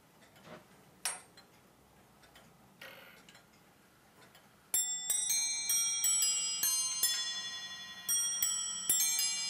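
A few faint clicks, then, about five seconds in, a clock chime rings out on a set of small bells. Quick strokes of several different notes follow in an uneven run, each note ringing on.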